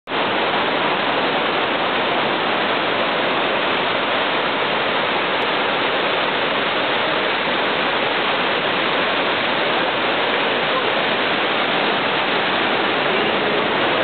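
Wide waterfall pouring over a rock ledge into churning whitewater: a loud, steady, even rush of water.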